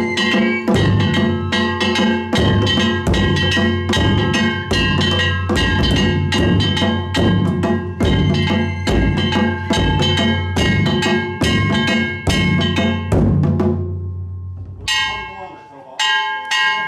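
Danjiri festival drums: large taiko laid flat and a hanging barrel drum beaten with wooden sticks in a fast, steady rhythm, with metallic ringing through it. The playing stops about fourteen seconds in, and a few more strikes come near the end.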